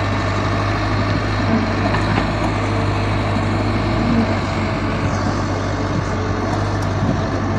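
Diesel engine of a Caterpillar hydraulic excavator running steadily with a constant low hum while it swings and tips a bucket of soil into a dump truck.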